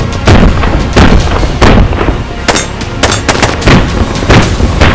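Rapid semi-automatic fire from AR-15-pattern 5.56 mm carbines, shots cracking in quick irregular succession, two to four a second, with music underneath.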